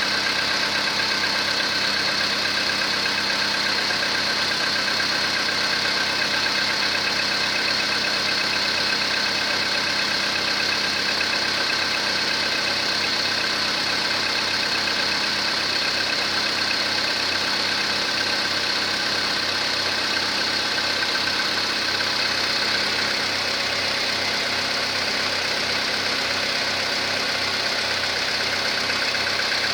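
Volkswagen Polo Sedan petrol engine idling steadily. The owner suspects piston knock, even though the engine already has the modified pistons.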